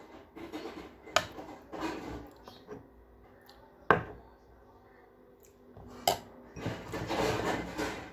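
Metal spoon scraping and clinking against a ceramic plate while eating, with three sharp clinks spread through it and a longer stretch of handling noise near the end.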